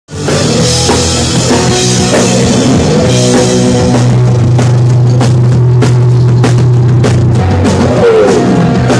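A punk rock band playing live and loud: electric guitar, bass and drum kit, the drums hitting a steady beat from about halfway through.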